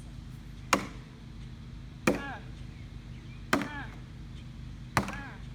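Four heavy blows struck on an old water heater's steel tank, about one every second and a half, each a sharp clank followed by a short ring.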